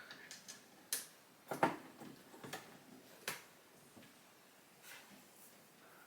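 Cable connectors being handled and plugged into sockets: a few separate faint clicks and knocks.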